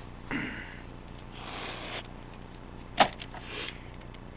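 A few short sniffs or breaths close to the microphone, and a single sharp click about three seconds in.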